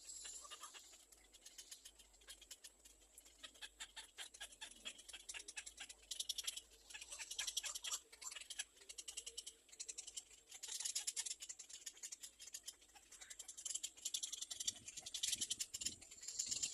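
Nestling birds making rapid, high-pitched begging chirps in bouts that swell and fade.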